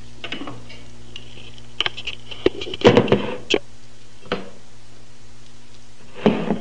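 Drinking glasses of water being handled and set down on a hard table: a handful of short knocks and clinks, clustered about two to three seconds in, with single ones later, over a steady low hum.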